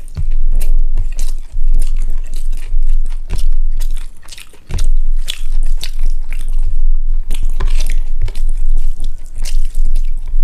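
Close-miked eating: rice and egg curry being chewed and bitten, with a run of sharp, wet mouth clicks and smacks. The chewing pauses briefly about four seconds in, then resumes.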